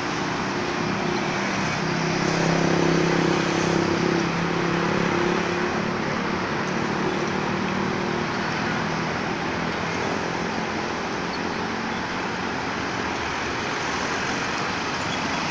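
Steady road traffic noise with a motor vehicle's engine hum, loudest a few seconds in and fading away by about ten seconds.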